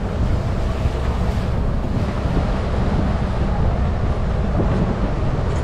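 Open-sided safari truck rolling slowly: a steady low engine and road rumble mixed with wind on the microphone.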